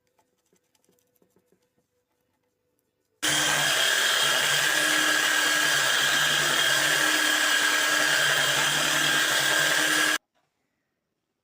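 An electric power tool running steadily for about seven seconds with a high whine over a rushing noise, switching on and off abruptly.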